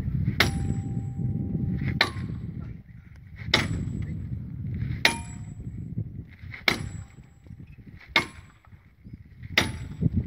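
Metal hammer striking steel at the crack of a large rock being split, seven ringing clangs about one and a half seconds apart.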